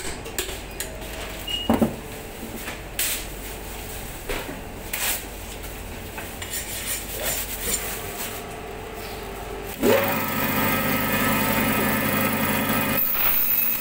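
Butcher's knives cutting and scraping pork on a cutting board, with scattered knocks and clicks of blade on bone and board. About ten seconds in, a machine starts up and hums steadily and more loudly.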